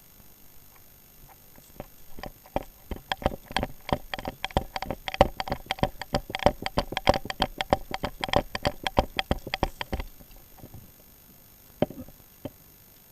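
A rapid, irregular run of sharp clicks and snaps lasting about eight seconds, followed by two single clicks near the end.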